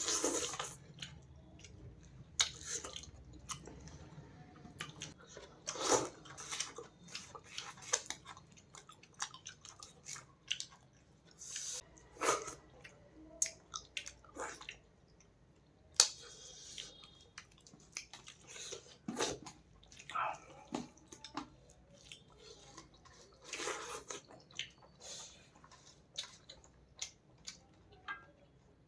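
Close-miked chewing and eating of fish and rice: a run of short, wet mouth clicks with louder bites and mouthfuls every second or two.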